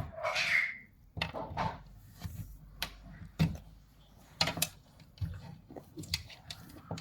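A large snapping turtle moving over a hard floor: irregular clicks and knocks of its claws and shell, with a louder scrape in the first second.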